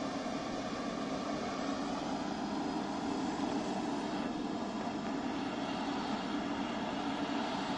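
Antonov An-22's Kuznetsov NK-12 turboprop engine with contra-rotating propellers running steadily just after start, the first of its four engines to be started: an even drone with a strong low hum.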